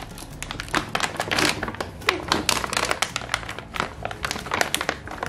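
Plastic kinetic sand packaging bag crinkling and crackling in quick, irregular clicks as it is squeezed and shaken to empty the sand into a plastic tray.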